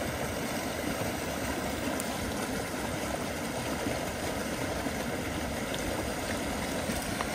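Small spring creek running over a riffle, a steady rush of water.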